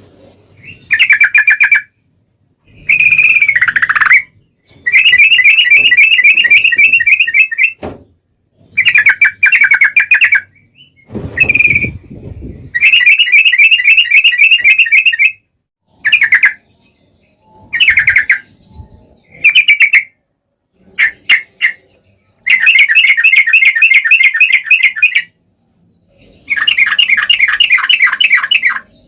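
Yellow-vented bulbul (trucukan) singing: repeated bursts of fast, bubbling chattering song, each lasting up to a few seconds, broken by short silent gaps.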